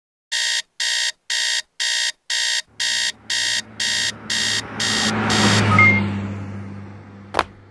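Electronic alarm clock beeping, about two beeps a second, eleven in all. Under the later beeps a low rushing swell rises, peaks just after the beeping stops, then fades, and a sharp click comes near the end.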